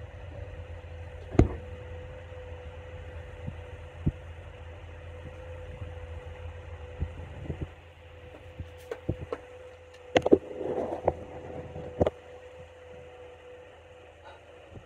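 Steady machine hum: a constant low rumble with a level mid-pitched tone, broken by scattered sharp clicks and knocks, with a cluster of them about ten to twelve seconds in.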